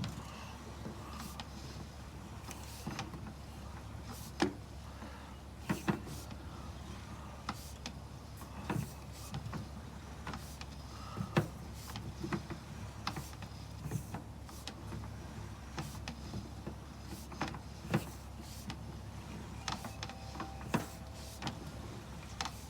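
Sewer inspection camera's push cable being pulled back through a 4-inch ABS drain line, with irregular clicks and knocks from the cable and reel over a steady low hum.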